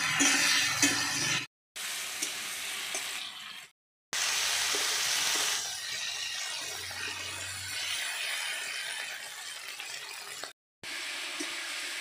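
Metal spatula stirring and scraping pieces of mud eel and potato in spiced oil in a steel karai, with a steady sizzle and scattered clinks of spatula on the pan: the fish being browned before water is added. The sound breaks off in short silences three times.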